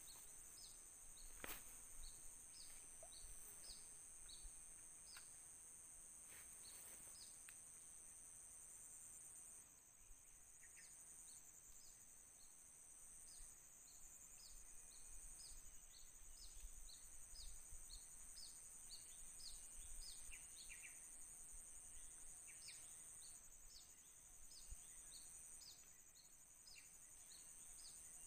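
Faint tropical forest ambience: a steady high-pitched insect drone with short, high chirps repeating about once or twice a second, and a single sharp click about a second and a half in.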